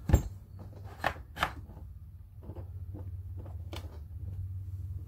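Canik hard plastic pistol case handled and its latches unsnapped: a few sharp plastic clicks and knocks, the loudest just at the start and two more about a second in, over a low steady hum.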